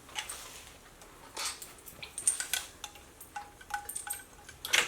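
Scattered light metallic clinks and taps with short ringing tones, the loudest near the end, from hand tools and the distributor being worked out of a Ford 302 V8 engine block.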